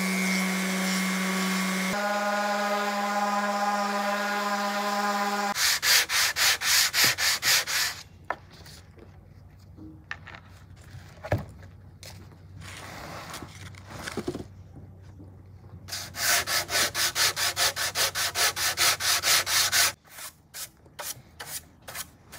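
Bauer random orbital sander running on the weathered wood of a carved nameboard, its pitch stepping up slightly about two seconds in, until it stops after about five seconds. Then sandpaper is worked by hand over the bare wood in quick back-and-forth strokes, about three a second, in two spells with softer rubbing between. The sanding takes off the last residue of old bedding compound.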